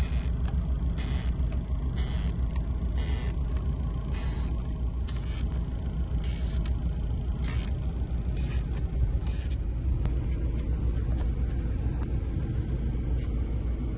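A steady low rumble underneath, with about a dozen short hissing, scraping sounds in the first ten seconds, made as the laptop screen's adhesive strip is pulled loose.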